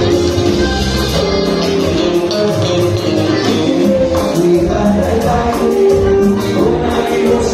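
Live band playing a song with electric guitar, bass and keyboard over a steady beat, heard from within the concert crowd.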